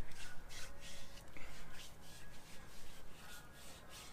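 Hands rubbing a brown cream over bare skin on the arms: repeated short swishing strokes, a few a second, dying away after about two and a half seconds.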